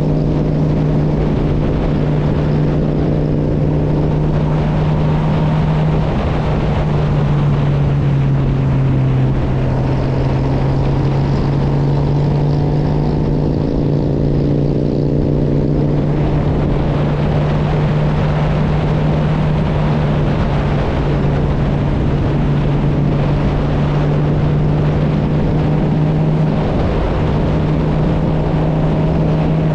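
Honda CB1000R's inline-four engine running at a steady, even speed, one constant drone over a rush of wind and road noise. The pitch sags slightly a few seconds in and comes back up about three seconds later.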